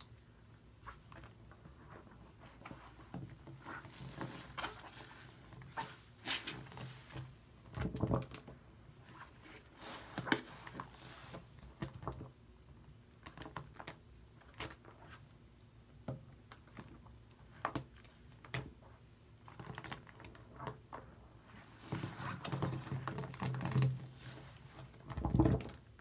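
Hands swishing and squeezing through a basin of watery shaving-cream lather, making irregular wet squelches, sloshes and pattering pops. The squelching comes in busier stretches, and there is a dull knock just before the end.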